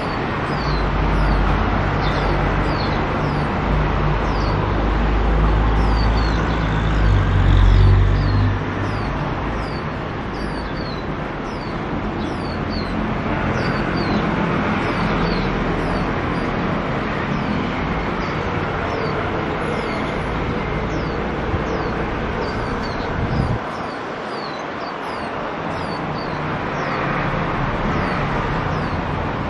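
Steady road-traffic rumble, heaviest in the first eight or nine seconds. Over it, a string of thin, high, falling chirps from Swinhoe's white-eyes repeats about once or twice a second throughout.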